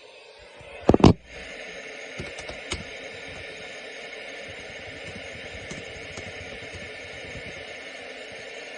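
Two loud thumps close together about a second in, then a steady hiss of radio static.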